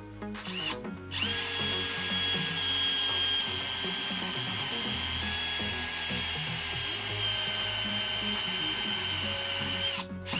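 Cordless drill boring into a wooden block: a short spin about half a second in, then a steady whine for about nine seconds that cuts off just before the end.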